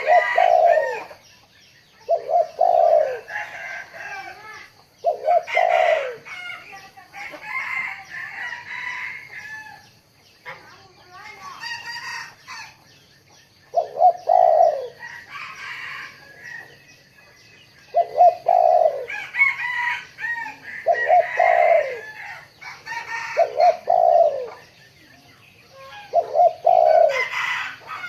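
Spotted dove cooing, repeating its low phrase every few seconds with a longer pause near the middle. Fainter, higher bird calls come between the coos.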